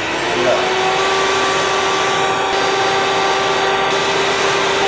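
Canister vacuum cleaner running, its motor coming up to speed in the first half second and then holding a steady whine over the rush of suction as the hose nozzle is worked over computer cables.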